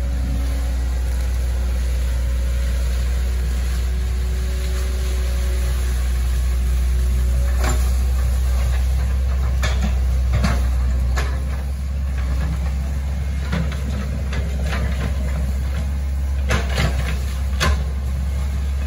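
Hitachi ZX110 excavator's diesel engine running steadily, with a few short sharp knocks, several of them bunched near the end.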